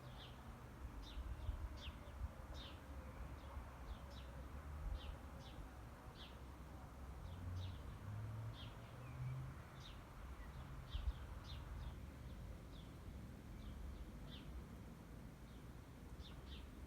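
A small bird chirping over and over, short high chirps about once or twice a second, over a faint low rumble.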